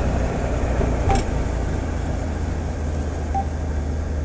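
Steady road and engine rumble inside a moving car's cabin, with short beeps from a GPS navigator's touch screen as its settings are tapped, once about a second in and again past the middle.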